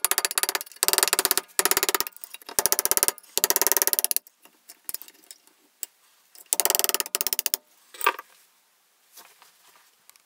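Metal rattling and clicking as the metal cap of a TO-3 power transistor clamped in a vise is worked open with a tool. There are five bursts of rapid clicking in the first four seconds and another about six and a half seconds in, followed by a few fainter scrapes.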